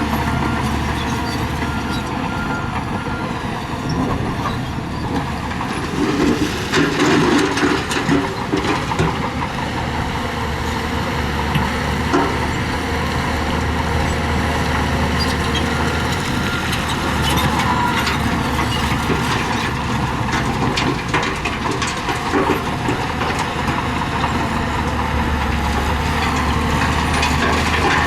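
Heavy diesel earthmoving machinery running steadily while working gravel, with a burst of clattering and knocking about six to nine seconds in and scattered knocks later.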